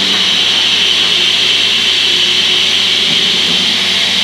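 Small personal bullet-style blender running steadily at one speed, with its cup pressed down on the motor base, blending a thin banana, soy milk and orange juice smoothie.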